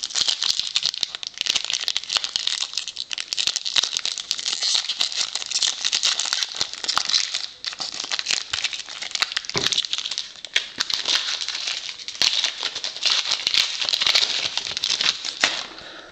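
Foil trading-card pack wrapper crinkling and crackling steadily as the pack is torn open and the cards are pulled out, with a brief lull about halfway through.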